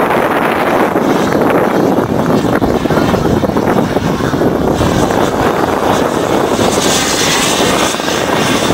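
Turbine engine of a radio-controlled model jet running in flight: a steady rushing roar, with a higher whine joining in about seven seconds in.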